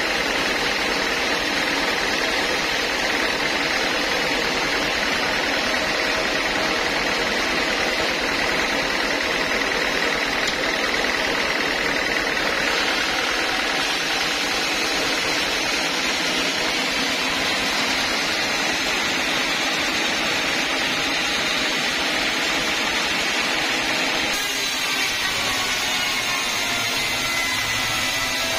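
Homemade band sawmill running steadily. About 24 s in the sound changes, and in the last few seconds the band blade is cutting through an old teak log.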